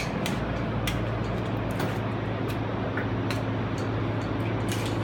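Steady low hum of running machinery with a background hiss, and scattered light clicks and taps.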